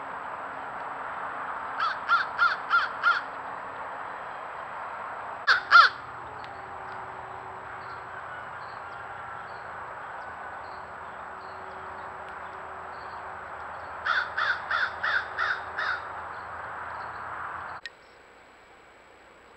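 American crows cawing in series: a run of about five caws, then two louder caws, then another run of about seven caws, over a steady hiss. The hiss drops away near the end.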